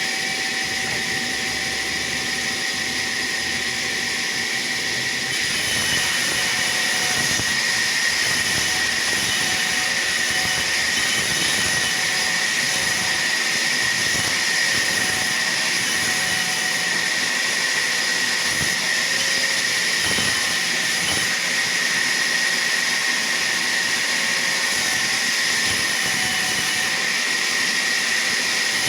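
Sawmill saw running with a steady high-pitched whine over a broad mechanical noise, growing slightly louder about five seconds in.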